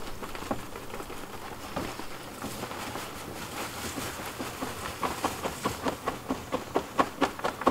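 Black+Decker leaf-vacuum collection bag shaken out over a plastic yard-waste cart, mulched leaves and debris spilling into the cart with rustling. Near the end, quick taps come about three or four a second as the bag is shaken harder.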